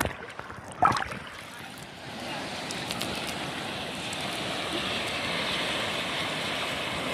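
Shallow sea water splashing against the camera at the surface, with one brief splash about a second in, then a steady rush of surf and moving water.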